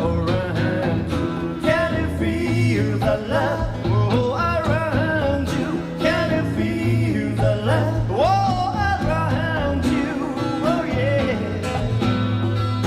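Live acoustic guitar music with a wordless, wavering singing voice, played back from an old cassette tape recording.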